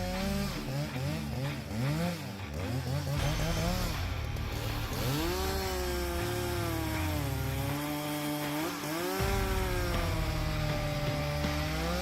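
Husqvarna 372 XP two-stroke chainsaw cutting logs, its engine pitch rising and falling quickly at first, then holding higher for longer stretches as the chain stays in the wood.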